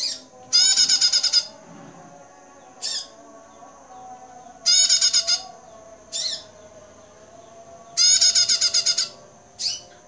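Female prenjak, a small songbird, calling in a cage: three loud, rapid trills, each just under a second long, come about three and a half seconds apart, with short single chips between them. A faint, steady high-pitched tone runs beneath the calls.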